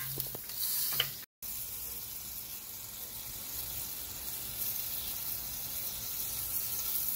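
Beef roast sizzling steadily on a Big Green Egg's cooking grate, an even hiss of fat and juices cooking, with the sound cutting out for a moment about a second in.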